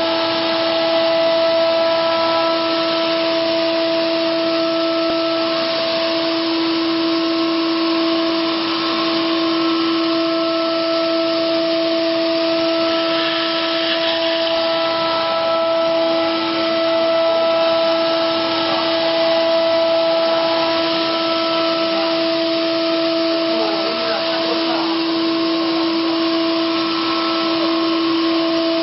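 Five-axis CNC machining center's spindle running steadily as its cutter mills a laminated wood dome: a constant whine over an even hiss of cutting.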